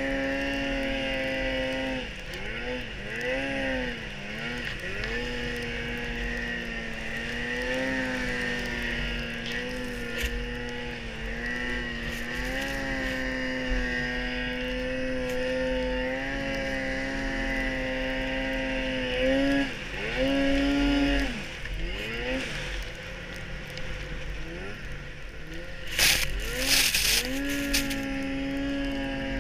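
Polaris Pro RMK 800 snowmobile's two-stroke twin engine running at high revs through deep powder, the revs dropping and climbing back several times as the throttle is eased and reapplied. A brief loud rushing noise comes near the end.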